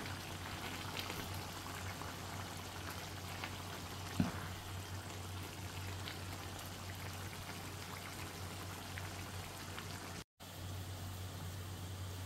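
Thick tomato stew bubbling as it simmers in an open pan, with the ladle scooping and pouring it and a single soft knock about four seconds in. A steady low hum runs underneath, and the sound cuts out for a moment just after ten seconds.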